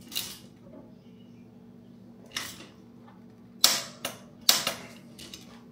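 Sharp clicks and knocks of tools working on a road bike's crankset during installation, single ones at first, then several in quick succession about two-thirds of the way through. A steady low hum runs underneath.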